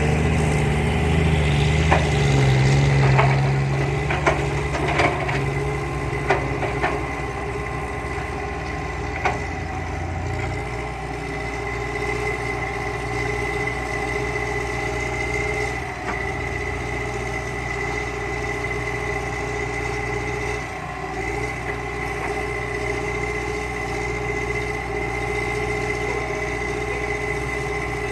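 Hitachi excavator's diesel engine running steadily with a high hydraulic whine as it loads soil into a dump truck. Several sharp knocks come during the first ten seconds, and the engine settles to a lower note about ten seconds in.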